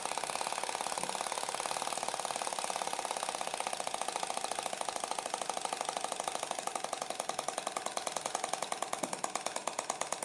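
Flame licker (atmospheric vacuum) engine running without its air scoop: a fast, even ticking, one tick per stroke, that slows over the last few seconds as the engine winds down. The owner puts the engine's short runs down to its cylinder overheating for lack of a big enough heat sink.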